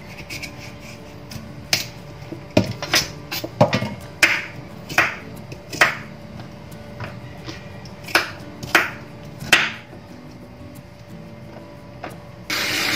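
Kitchen knife chopping squash into chunks on a wooden cutting board: about a dozen sharp, irregular chops through the flesh and onto the board, then a pause. Near the end a tap starts running into the sink.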